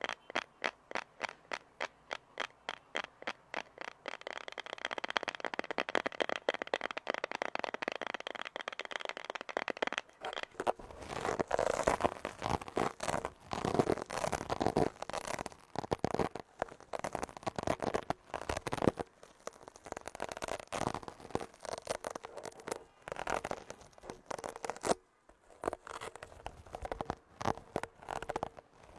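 Close-miked ASMR trigger sounds: even tapping clicks at about four a second, then continuous scratching, turning about ten seconds in to louder, irregular crackling and scraping.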